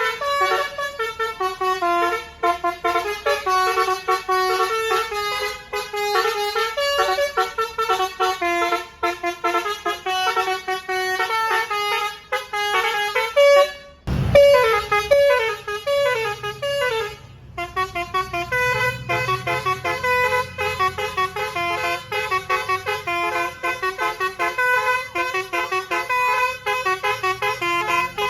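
Basuri telolet horn on a tour bus playing a long melody of quick stepped notes. About halfway through there is a brief low thump, then a few seconds of repeated falling note runs before the tune carries on.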